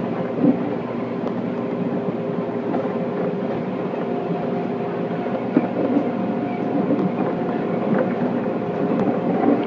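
Electric commuter train of the JR Nara Line running along the track, heard from inside at the front of the train: a steady running hum with a few sharp clicks from the rails.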